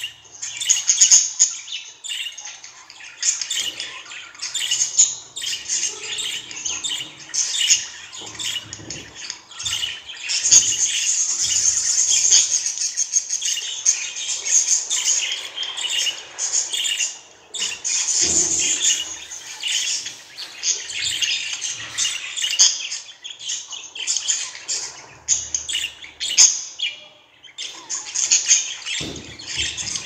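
Budgerigar chattering and chirping without a break: a fast, high stream of chirps and warbles, with a short lull near the end.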